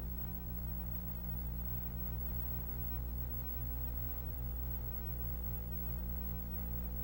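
Steady low electrical hum with a faint hiss; nothing else stands out.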